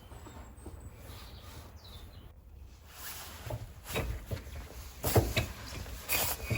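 Low background for the first half, then a run of separate metal clinks and knocks, some with a brief ring, as a small wheel rim is handled and taken off a bolt held in a vise.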